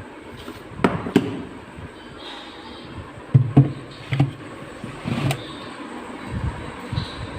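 Hard plastic knocks and clicks, about six spread over the few seconds, as plastic storage boxes are handled and set into a fridge.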